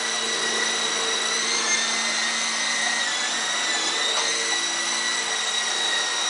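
Small electric RC helicopter (Venom Beacon) in flight: a steady high motor-and-rotor whine whose pitch dips briefly twice.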